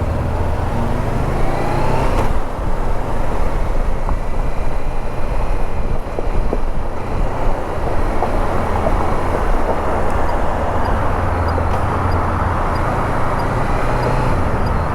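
Honda CB500X parallel-twin engine running under way, with wind and road noise over the rider's microphone. A pitched engine note rises briefly in the first couple of seconds.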